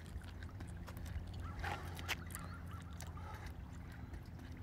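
Light footfalls of a runner skipping on a wet, slushy track, heard as scattered soft slaps over a steady low outdoor rumble.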